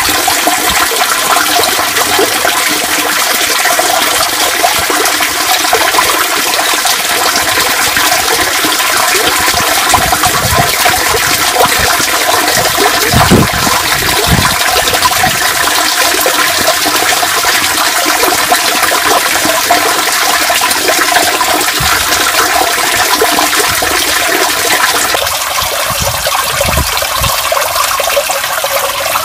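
Stormwater running and splashing down through a cast-iron street drain grate into the drain below, a steady rush with a few faint steady tones in it, like a flushing toilet. About 25 s in it turns a little quieter and thinner.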